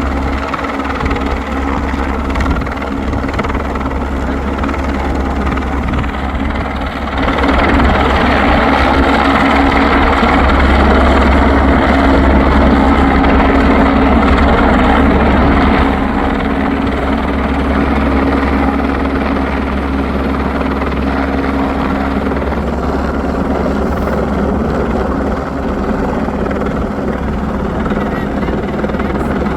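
Helicopter running steadily, its rotor and engine noise heavy in the low end. It gets louder about a quarter of the way in, holds for several seconds, then drops back.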